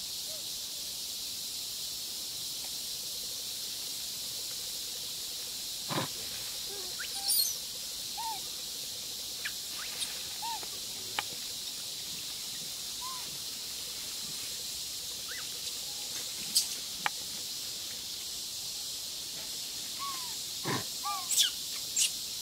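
Outdoor forest ambience: a steady high hiss with scattered short animal calls and chirps, a few louder ones about six seconds in and near the end.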